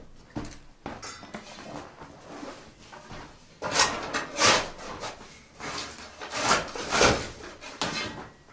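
Shovel blade scraping and digging into dry, stony soil. About half a dozen rough scraping strokes begin about three and a half seconds in, after quieter shuffling.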